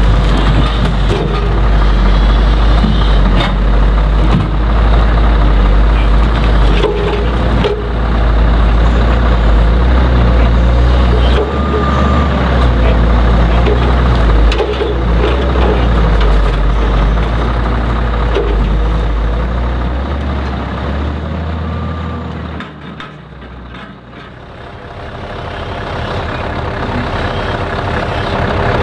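Volvo L180E high-lift timber loader working logs: its diesel engine runs under load with a deep low rumble while the logs knock and clatter in the grapple. About three quarters of the way in the sound briefly drops quieter, then picks up again.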